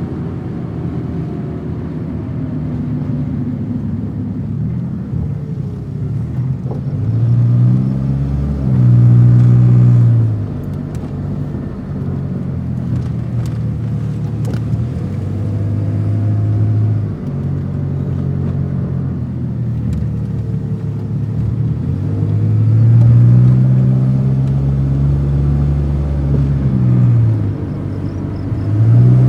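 Car engine running and revved up twice, its pitch climbing and then dropping back each time.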